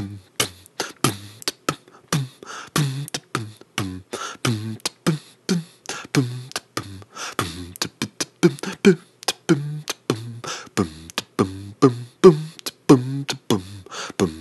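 Fast-forwarded recording: a rapid stream of short, garbled, voice-like chirps, about three or four a second, many falling in pitch.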